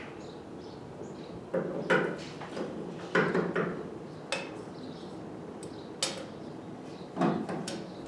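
Metal clinks and clunks as a sealed-beam headlamp is handled and seated in a Willys MB jeep's steel headlight housing. There are about five short bursts of clatter, the loudest about two seconds in and about three seconds in.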